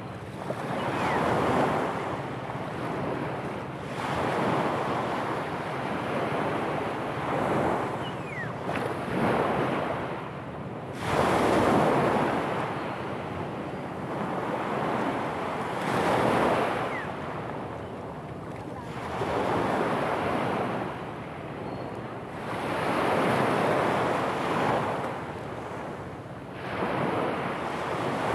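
Small sea waves breaking and washing up a pebble beach, each surge swelling and falling away about every four seconds.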